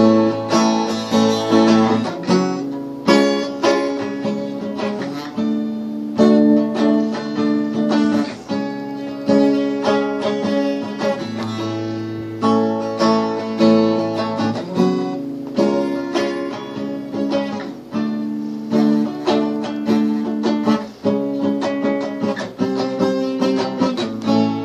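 Acoustic guitar played solo without singing, a new chord struck about every second.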